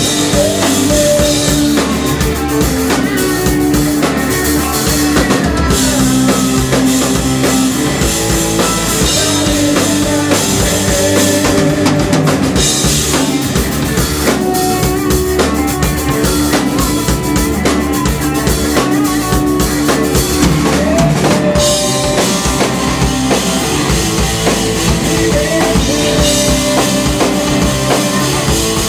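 Rock band playing live and loud: electric guitars over a drum kit, with bass drum and snare hits.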